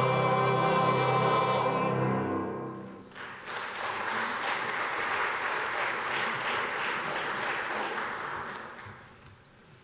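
Church choir singing and holding a final chord that dies away about three seconds in, followed by the congregation applauding for about six seconds.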